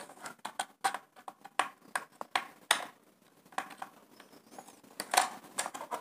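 Small screwdriver and a stiff wire working against the brass terminal screws of a modular two-way switch: irregular light clicks and scrapes as the wire is pushed into the terminal and the screw is turned down on it.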